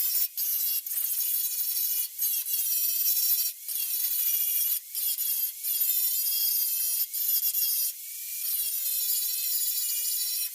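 Angle grinder working rust off the car's steel bodywork: a high whine that wavers in pitch as the pressure on the metal changes, broken by short dips every second or so.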